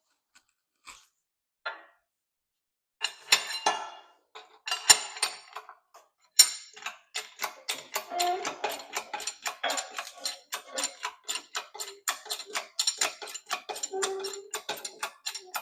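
Metal clicking and clinking: a few separate knocks, then a steady run of about four clicks a second, from a socket ratchet working the mini motorcycle's front axle nut.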